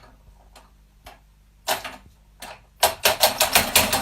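A few separate sharp clicks, then near the end a fast run of loud taps, about eight a second.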